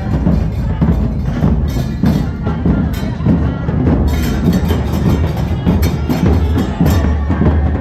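Street drum group playing percussion, with many sharp hits over a steady low hum.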